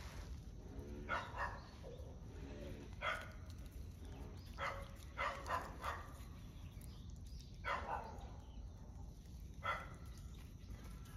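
One-month-old puppy giving short, high yapping barks, about eight single yaps spaced irregularly with pauses of a second or more between them.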